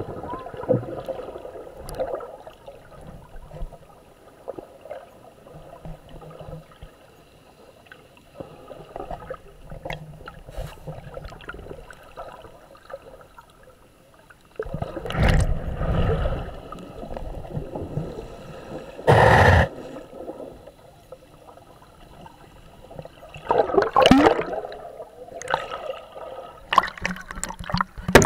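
Muffled underwater water sounds: gurgling and sloshing with a few louder rushes of water. The loudest rush is short and comes a little past the middle.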